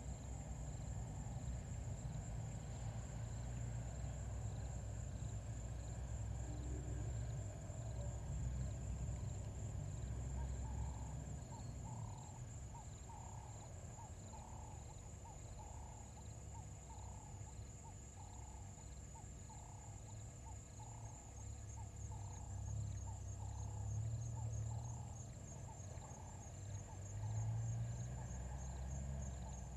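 Evening bush ambience: insects trilling steadily at a high pitch, with a softer pulse repeating over them. From about a third of the way in, a call repeats in evenly spaced notes, about one and a half a second, over a low rumble.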